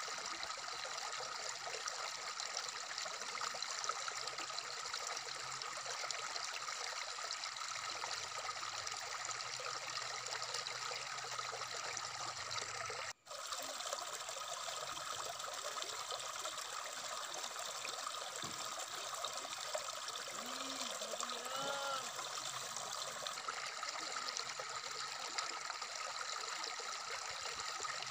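Shallow rocky stream running over stones, a steady rushing trickle of water, cut by a momentary silence about halfway through.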